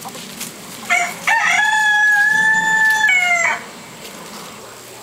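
A rooster crowing once, loudly: a short opening note about a second in, then a long held note for about two seconds that drops in pitch as it ends.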